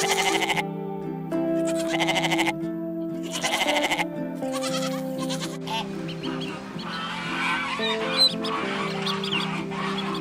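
A farm animal bleating three times in quavering calls, each under a second long, over background music with steady held notes. From about halfway a busier, scratchier animal sound takes over under the music.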